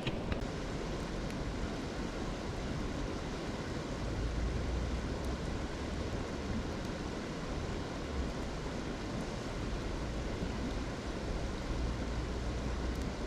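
Steady rushing of river water, with a low rumble that swells a few seconds in and again later.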